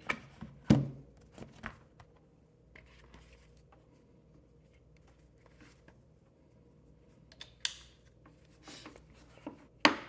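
Handling sounds of plugs and a portable power station being worked: a few sharp clicks and knocks, a quiet stretch, then brief scraping about three-quarters in and a loud click near the end.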